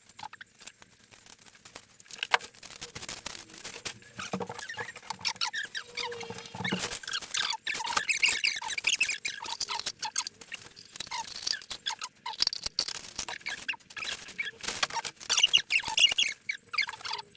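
Rustling, scraping and quick light clicks of small objects being handled and sorted, busiest in the second half.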